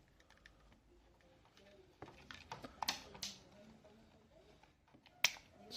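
A few faint clicks and taps of plastic parts on a hot air brush's casing being pried loose and pulled off, the sharpest click about five seconds in.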